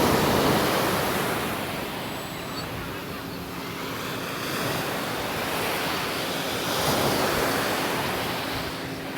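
Sea surf breaking and washing up the beach, swelling at the start and again about seven seconds in, with some wind on the microphone.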